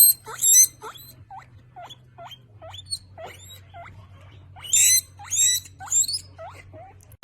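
A small animal squeaking over and over, about two short upward-hooking squeaks a second, with louder shrill squeals near the start and again about five seconds in.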